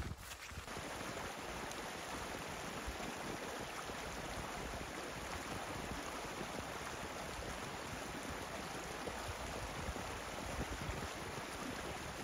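A small mountain stream running between snow and ice banks: a steady, even rush of water.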